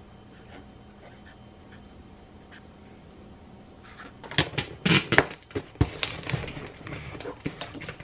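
A pen writing on a sticky note, with faint ticks of the tip, then from about four seconds in a run of loud, irregular rustling and clicking from paper and books being handled.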